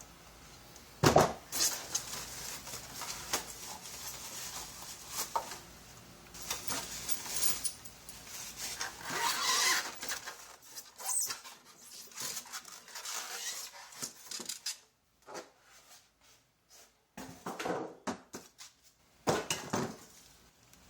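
Metal hardware and parts being handled: sharp clinks and knocks, the loudest about a second in, with stretches of rustling.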